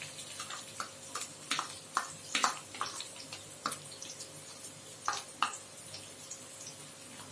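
Hot oil sizzling steadily in a kadai as chopped shallots are scraped in from a plastic bowl, with a string of sharp taps and clicks from the plastic spatula knocking against the bowl and pan, the loudest about two and a half seconds in.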